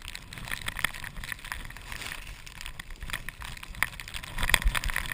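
Blizzard skis sliding and scraping over wet, slushy snow, heard through a chest-mounted camera, with a steady hiss and irregular clicks and knocks. It gets louder about four and a half seconds in.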